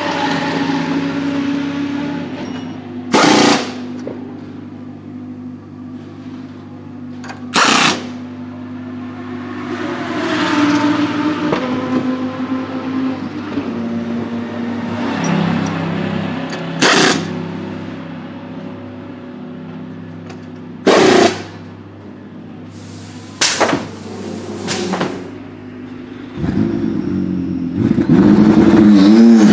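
BMW M4 GT3's P58 3.0-litre twin-turbo inline-six idling steadily, broken by about six short, sharp, loud bursts spread through it. Near the end the engine revs up as the car pulls away.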